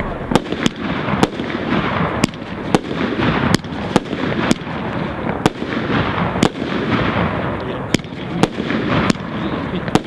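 Aerial fireworks going off: a run of sharp bangs, irregularly spaced at roughly one or two a second, over a continuous crackling haze.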